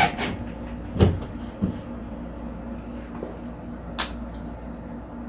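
A dull knock about a second in, a lighter knock just after, and a sharp click near four seconds, over a steady low hum: hardware and tools handled against the wall while wall anchors are fitted.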